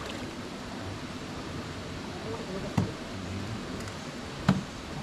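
Steady rush of flowing river water, with two sharp knocks, one near the middle and a louder one near the end.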